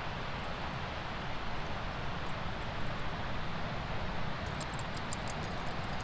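Surf on a sandy beach: a steady rush of small waves breaking and washing in. Near the end, a quick run of faint high ticks.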